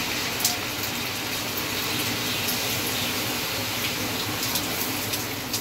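Chicken, onion and tomato in a hot karahi hissing steadily as a splash of water is sprinkled in by hand, with a few faint clicks.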